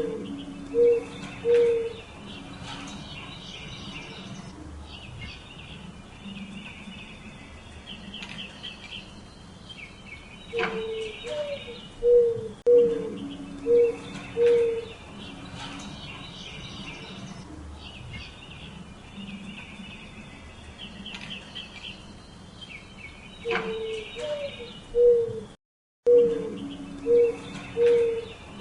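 Spotted dove cooing: phrases of three to five low, hollow coos, repeated several times with long pauses between. Higher chirping from other birds runs underneath.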